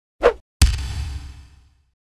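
Cartoon sound effects: a quick whoosh, then a bang whose ringing tail fades out over about a second.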